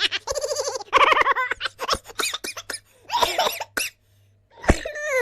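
Recorded human laughter sound effects, one laugh after another in quick rhythmic ha-ha pulses. A short sharp burst comes near the end, followed by a falling voice.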